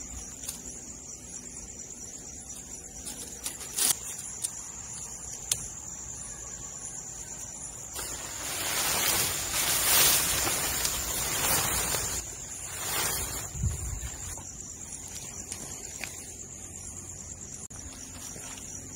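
Nylon tent fabric rustling and swishing as the fly is handled over the bent poles, loudest in the middle for several seconds, with a couple of sharp clicks from the tent poles early on. Crickets chirr steadily at a high pitch throughout.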